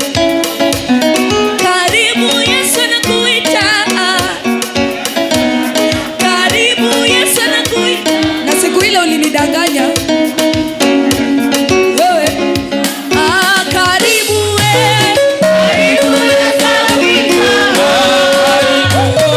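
Live gospel worship band music with a steady beat: guitar and percussion under wavering melodic lines, with some singing.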